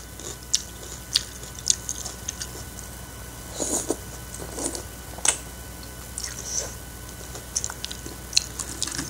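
Close-up mouth sounds of eating instant noodles: wet chewing and lip smacks in scattered sharp clicks, with a short slurp of noodles about four seconds in.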